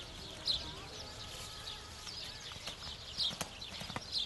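A horse cantering on a sand arena, its hoofbeats thudding in an uneven stride rhythm that comes more often in the second half. A few short, high hissy bursts cut in, the loudest about half a second in.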